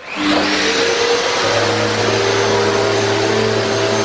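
Electric corner floor sander running steadily on pine floorboards: a loud, even rushing noise with a steady motor whine on top.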